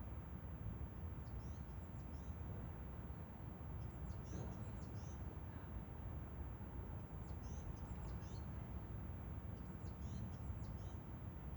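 A small bird singing short, high chirping phrases about every three seconds over a steady low background rumble.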